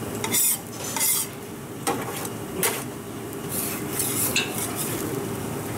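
Metal spatula scraping and knocking on a flat-top griddle, about six short strokes in the first four and a half seconds.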